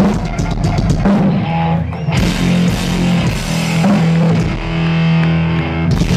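Heavy metal band playing live: distorted electric guitar holding low notes over a drum kit, with a cymbal wash coming in about two seconds in.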